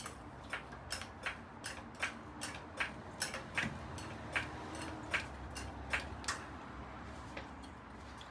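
Repeated sharp clicks, two or three a second and slightly uneven, thinning out after about six seconds, over a faint steady low hum.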